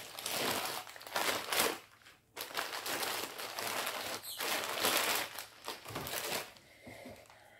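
Packaging crinkling and rustling as it is handled, in several bursts with a short break about two seconds in, then fainter near the end.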